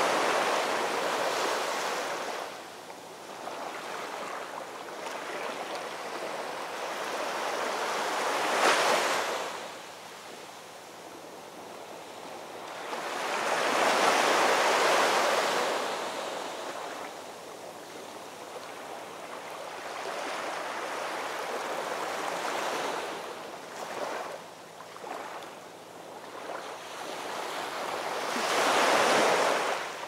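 Small waves washing up onto a sandy beach among rocks, the surf swelling and fading in slow surges about every six to seven seconds.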